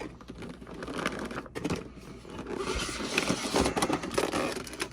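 Plastic clamshell packaging being pried open and handled: crinkling, scraping and small clicks, busiest in the second half.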